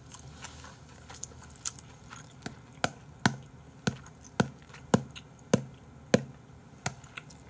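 Small plastic pepper container being opened and tapped in the hands: a string of sharp clicks, about one every half second.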